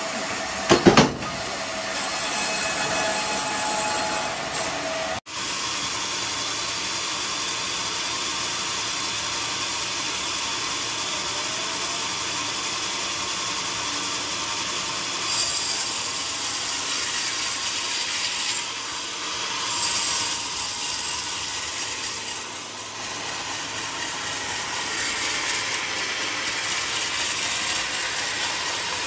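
Band sawmill machinery running with a steady mechanical noise. Two sharp, loud knocks about a second in, and the sound breaks off for an instant about five seconds in.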